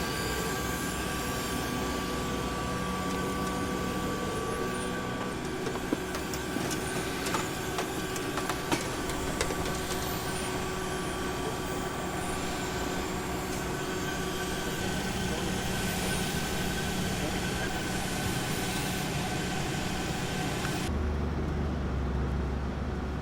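Steady engine or machinery noise with several held whining tones and occasional sharp clicks. About three-quarters of the way through it switches abruptly to a deeper, steady low hum.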